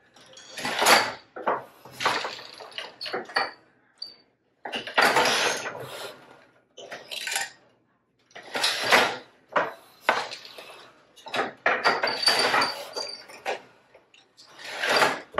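Wooden floor loom being woven on: the pedals lift the shafts with a clatter of heddles, the boat shuttle passes through the shed, and the beater knocks the weft in, in a repeating cycle every second or two. Now and then there is a brief high squeak from the loom.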